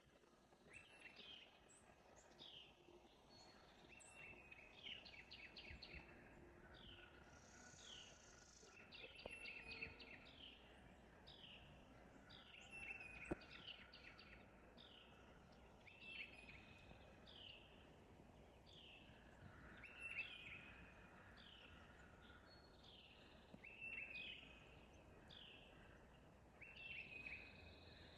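Faint birdsong: many short, falling chirps repeated every second or so, with quick trilled runs among them. There is one sharp click about halfway through.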